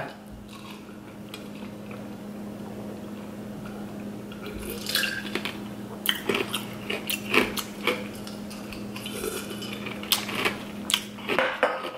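Ice cubes clinking against a drinking glass of water as a person drinks from it, in scattered sharp clinks. A steady low hum runs underneath.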